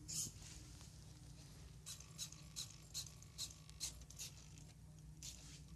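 Small motors of an Arduino-driven pen-drawing robot moving in short strokes, about two to three a second, as it positions the pen and draws, over a low steady hum. One sharp click comes just at the start.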